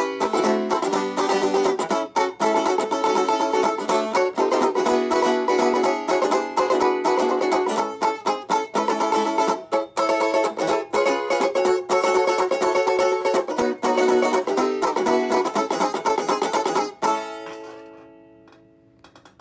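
Six-string banjo (banjitar) strung with Nashville high-strung strings and damped with foam inside the pot, played unplugged: fast picking for about seventeen seconds, then the playing stops and the last notes ring out and fade.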